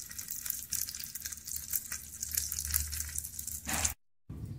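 Sliced pork sausage frying in fat in a cast-iron pot: a steady sizzle full of small, irregular crackles and pops. It breaks off suddenly near the end.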